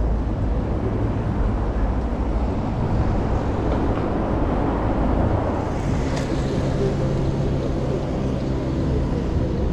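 Road traffic on a city street: cars driving past with a steady rumble of engines and tyres.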